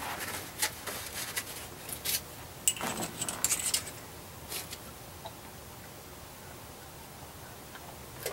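Small metal hand tools clinking and rattling as they are picked up and handled at a workbench: a cluster of light metallic clicks and jingles over the first four seconds or so, with a single click right at the end.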